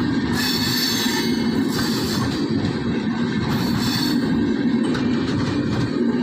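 Passenger train coaches rolling past close by at a level crossing: a steady, continuous rumble of wheels on the rails.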